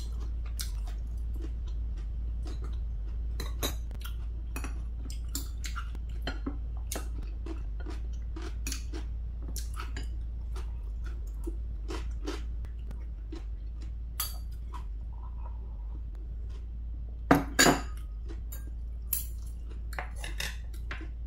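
Metal spoon and chopsticks clinking and scraping against ceramic plates and bowls while eating: a scattered run of light clicks, with two louder knocks about three-quarters of the way through.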